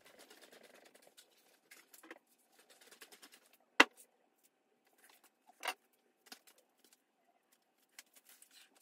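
Mostly quiet room with a few scattered faint clicks and knocks from someone moving about a workbench, one sharp click a little under four seconds in and a smaller one near six seconds, over a faint steady tone.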